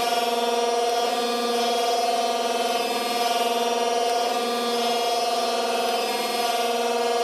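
Kent surface grinder running: a steady machine hum with several constant whining tones that does not change.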